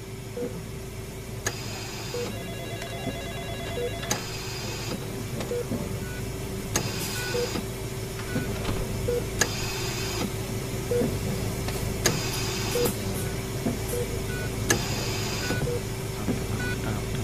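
A repeating mechanical or electronic sound bed: a steady hum, with a short soft blip about once a second and a hissing, whirring burst every two to three seconds.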